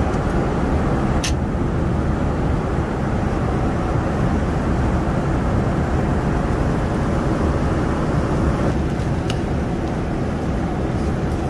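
Steady low roar of airflow and engines inside the cabin of a Boeing 787-9 Dreamliner in flight. Two faint clicks cut through it, about a second in and near the end.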